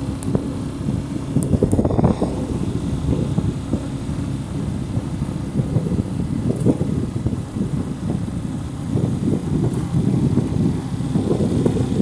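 Motorcycle engine running at riding speed, with wind buffeting the microphone.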